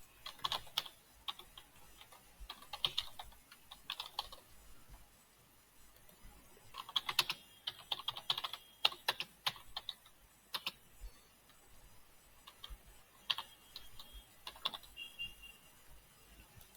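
Typing on a computer keyboard in several short bursts of key clicks with pauses between them.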